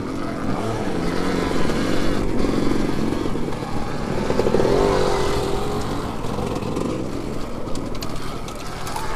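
Dirt bike riding along a trail: motor and drivetrain running steadily, with the pitch rising and falling a little as the throttle changes.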